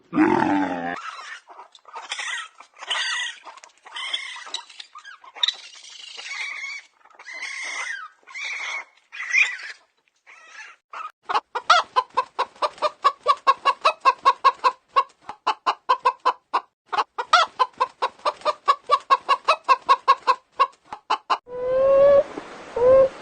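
Chickens clucking: a string of short squawking calls, then a long rapid run of clucks, about five a second. A loud low call fades out about a second in, and a different animal's rising, whining calls begin near the end.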